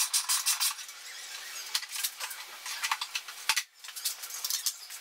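A hand ratchet clicking quickly for about the first second, then scattered clicks and rubbing as a loosened plastic motorcycle fairing panel is handled.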